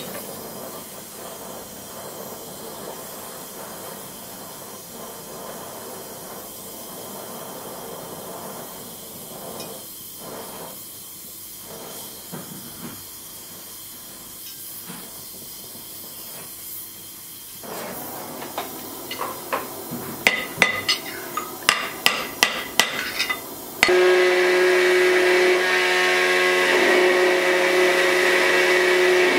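Oxy-fuel gas torch flame hissing steadily as it heats a steel knife fitting on an anvil. About eighteen seconds in, around a dozen hammer blows on metal ring out over the hiss, coming faster toward the end. In the last few seconds a belt grinder runs with a steady hum as a steel part of the knife is ground against the belt.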